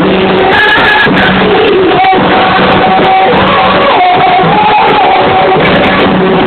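Loud music with a singing voice holding long, bending notes.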